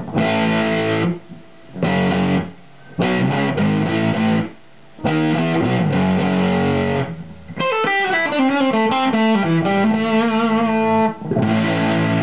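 Electric guitar played through a Danelectro Cool Cat fuzz pedal set to low gain, about a quarter of its range, with tone and volume at neutral. It plays short chord phrases with brief silent gaps between them, then a descending single-note run about eight seconds in, and ends on a held chord.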